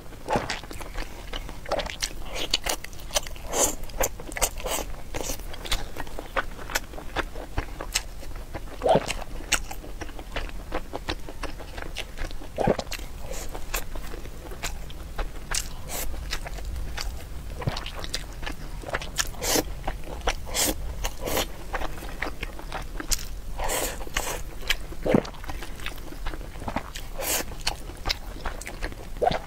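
Close-up eating sounds of a person chewing mouthfuls of braised pork belly with preserved mustard greens (mei cai kou rou) over rice: many short, irregular smacks and clicks.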